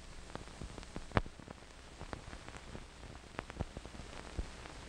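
Soundtrack noise of blank 16mm film leader: a faint steady hiss and low hum dotted with irregular clicks and pops from dust and scratches on the film. One sharper pop comes about a second in, and the pops come more often near the end.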